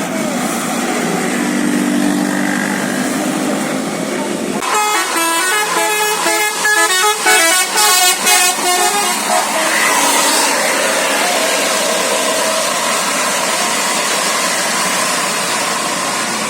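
A bus's musical air horn plays a fast basuri-style 'telolet' melody of quickly changing notes, starting about four and a half seconds in and lasting about five seconds. A steady low drone comes before it, and an even rush of noise follows.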